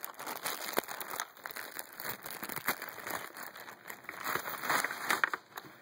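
Crinkly packaging being ripped and crumpled off a new keyboard, a continuous irregular crackling with many small sharp snaps.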